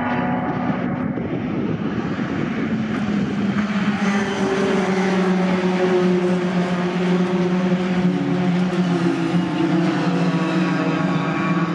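Engines of a pack of racing pickup trucks running together: a steady drone of many engines with several held tones, growing a little louder about four seconds in as the field passes through the bend.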